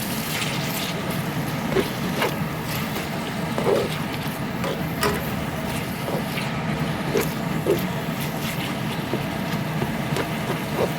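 A steady low mechanical hum, with scattered light clicks and taps.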